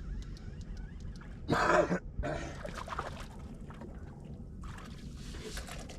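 Water splashing and trickling as a small striped bass is brought up at the boat side, with one short, louder splash about a second and a half in.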